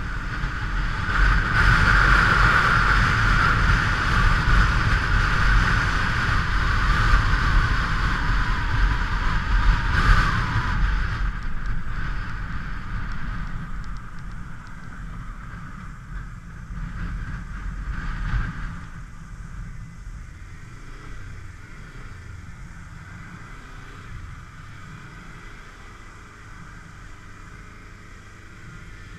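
Motorcycle on the move: engine and road noise with wind rush, loud for the first ten seconds, then easing off, and dropping to a lower steady run after about nineteen seconds.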